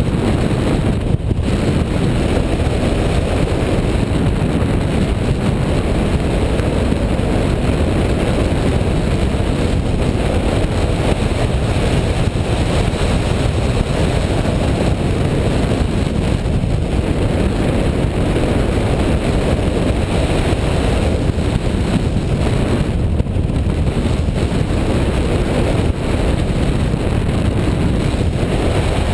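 Steady wind rushing over the microphone of a camera mounted on a hang glider in flight, a loud, even rumble that doesn't let up.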